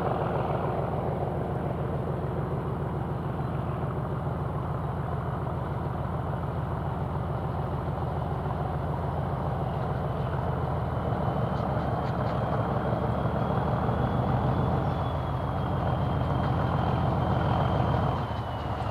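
Diesel locomotive engine working as the train approaches: a steady low throb, with a high whistle from the turbocharger that comes in about halfway through, rises slightly and starts to fall near the end.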